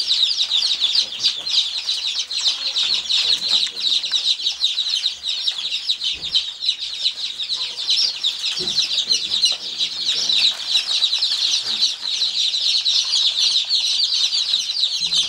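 A crowd of newly hatched chicks peeping continuously: a dense chorus of short, high-pitched peeps overlapping without a break.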